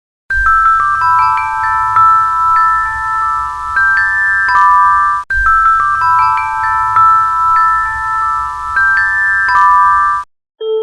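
Aeolian bells: bell-like chime tones entering one after another, higher notes first and then lower, each ringing on and overlapping the next, over a faint low rumble. The same passage of about five seconds plays twice, with a brief break between.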